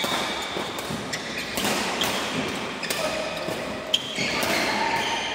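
Badminton doubles rally: rackets striking the shuttlecock in short cracks, one loud hit about four seconds in, with brief squeaks of court shoes on the mat.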